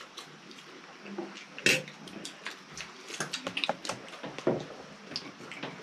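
Scattered clinks and taps of a spoon and tableware on metal plates during a meal, with a sharper click about a second and a half in.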